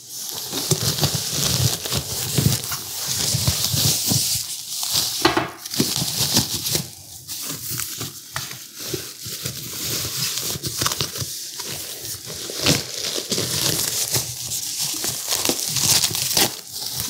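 Packaging crinkling and rustling as stand-mixer parts are unwrapped, a steady irregular crackle with short sharp crackles and tears throughout.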